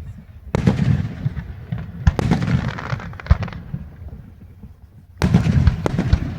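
Fireworks going off in three volleys, about half a second, two seconds and five seconds in. Each is a run of sharp bangs over a low rumbling boom, and the second is followed by a second or so of crackling.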